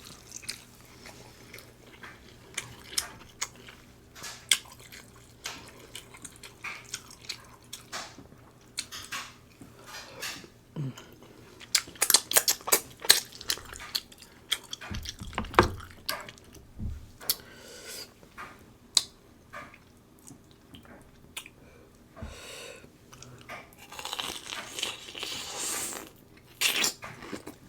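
Close-up eating of a king crab seafood boil: chewing and wet mouth sounds with many sharp clicks and crunches, thickest about twelve to thirteen seconds in. A few deeper thuds follow, and near the end there is a longer wet, hissy stretch.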